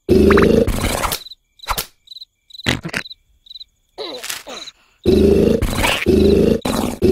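Loud snoring in short, quickly repeating pulses, with high, evenly spaced chirps over it. About a second in it breaks off for several seconds, leaving scattered clicks and chirps, then resumes about five seconds in.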